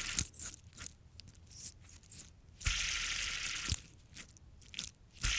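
A fidget spinner with dirty bearings being flicked and spun. Each spin gives a high, squeaky whirr that lasts only about a second before it stops: one fades just after the start, one runs through the middle, and a new one starts near the end. Short clicks come between the spins. The squeak and the short spins are the sign of unclean bearings.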